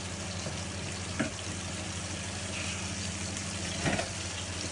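Trout fillets frying in a pan and a cream sauce reducing, a steady sizzle over a steady low hum, with two light knocks, about a second in and near the end.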